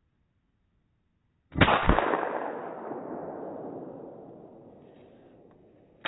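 Two loud bangs about a third of a second apart, a second and a half in, followed by a long rumbling fade lasting several seconds; a sharp click near the end.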